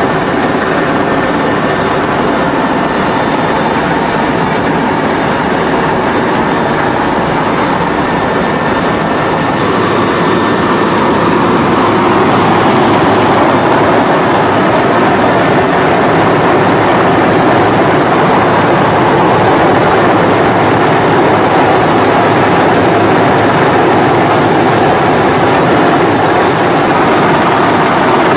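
Helicopter rotor and turbine noise heard inside the cabin, loud and steady, growing louder about ten seconds in.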